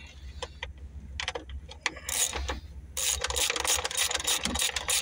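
Hand ratchet wrench clicking as a bolt is tightened down: a few scattered clicks, then from about three seconds in a fast, steady run of ratcheting clicks.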